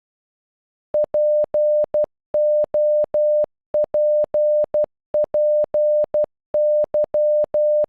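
Morse code beeps: one steady electronic tone keyed in dots and dashes that spell "POPPY" (.--. --- .--. .--. -.--), starting about a second in, with short gaps between letters.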